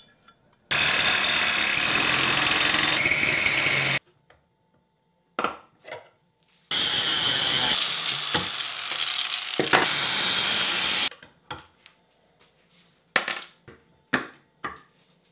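Power tools cutting an aluminium sheet-metal headlight bracket, in two long steady runs that start and stop abruptly. Between and after them come a few short scraping strokes, like a hand file on the cut edge.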